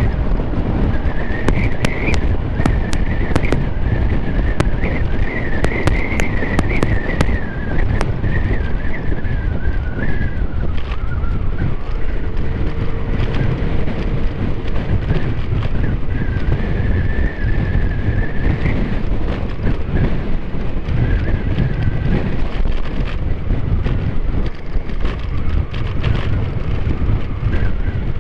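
Scooter riding at speed: wind buffeting the rider's microphone over the running engine, with a wavering high whine that fades in and out. There are scattered sharp ticks in the first several seconds.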